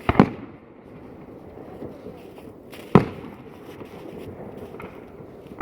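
Fireworks shells bursting in the sky: a quick double bang just after the start, a single bang about three seconds in, and another near the end, each dying away in a rumble, with a steady low noise of the display in between.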